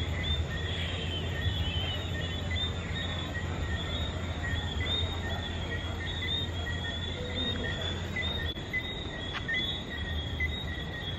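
Night-time chorus of many small animals calling in short, high-pitched chirps that repeat constantly and overlap, over a low steady hum.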